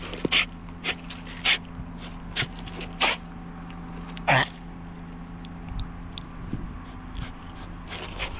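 Small dog making short, sharp huffs and snorts through its nose, about six spaced a half-second to a second apart over the first half, then fading to faint ticks.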